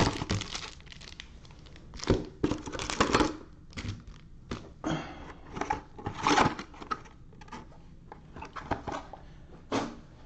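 Plastic wrapping on a box of trading card packs being crinkled and torn open in irregular crackling bursts.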